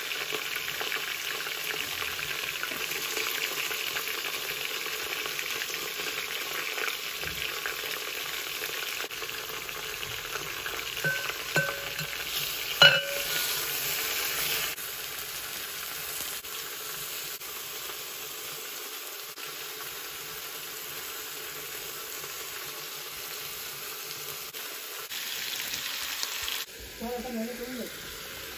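Meat sizzling steadily as it fries in an aluminium pot, the sizzle settling a little quieter about halfway through. A few short metallic clinks ring out from a knife against the pot a little before the middle.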